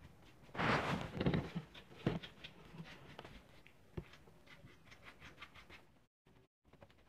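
Hard plastic keyboard parts being handled: a short burst of rattling and scraping, then a run of small clicks and taps, with a sharper knock about four seconds in.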